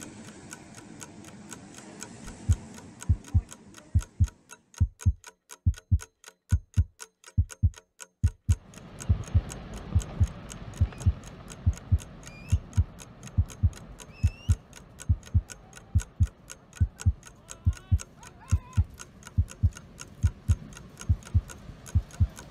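A clock ticking fast and evenly, with the low double thumps of a heartbeat beating under it. A soft background hiss drops out about four seconds in and comes back about four seconds later.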